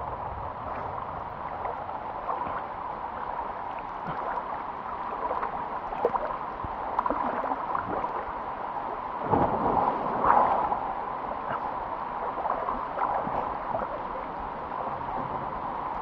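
Water sloshing and gurgling as someone crosses a river, over a steady rush of water. A louder stretch of splashing comes about nine to ten and a half seconds in.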